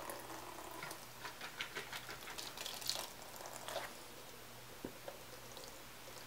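Soapy cleaning solution dribbling and dripping from an upturned small-engine gas tank into a plastic tub, in faint irregular spatters that thin out after about three seconds.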